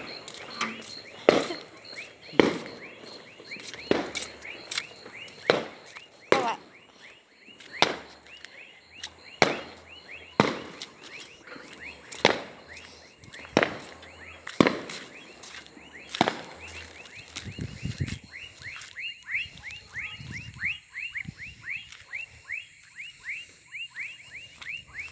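A frog chorus of quick, falling chirps repeating many times a second. Footsteps land about every second and a half and stop about two-thirds of the way through.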